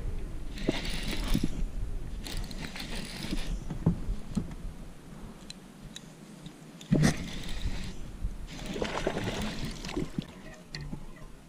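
Rod and baitcasting reel handled in a boat, with rustling and scraping, and a sharp knock about seven seconds in. Then a cast: the reel's spool whirrs briefly as line pays out.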